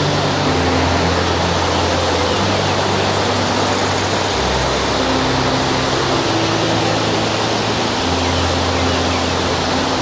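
Waterfall rushing, loud and steady, the water pouring over a small weir.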